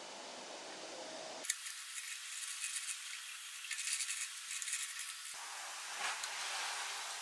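Small metal clicks and clinks of a steel screw-and-nut screw chuck being fitted into the jaws of a four-jaw lathe chuck, starting about a second and a half in, after a faint hiss.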